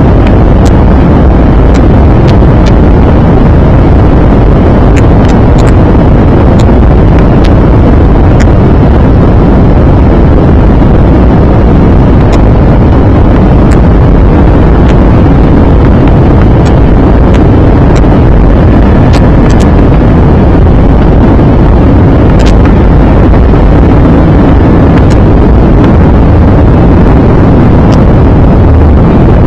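Loud, steady cabin roar of an Airbus A320-214 coming in to land: engine and airflow noise heard inside the passenger cabin, with occasional faint clicks.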